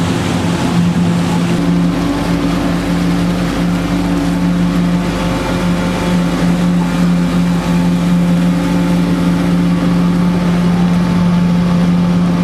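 A boat's engine running steadily under way with a droning hum, over the rush of water and wind. Its pitch steps up slightly about a second and a half in.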